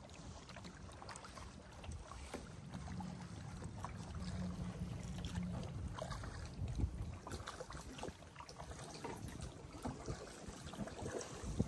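Kayak on the water: wind rumbling on the microphone, with scattered small splashes and knocks.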